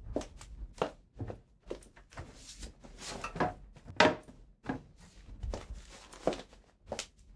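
Irregular knocks and clicks, about two a second, from someone moving about a kitchen and handling a bag and cabinets, with a short rustle in the middle and the loudest knock about four seconds in.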